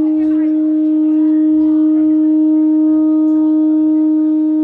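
Traditional Naga horn blown in one long, steady, unbroken note, with faint voices underneath.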